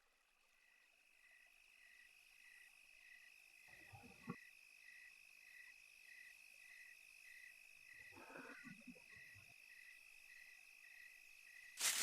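Faint insect ambience of crickets chirping in an even pulse over a steady high buzz, fading in at the start. Two brief lower sounds come about four and eight seconds in.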